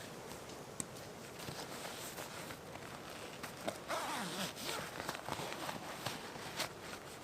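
Rustling and scraping handling noises with scattered small clicks, the busiest stretch about four seconds in.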